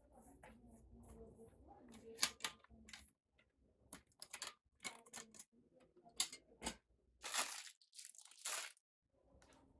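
Packaging being handled: irregular rustling and crinkling with sharp clicks and knocks, and two longer rustles about three-quarters of the way through.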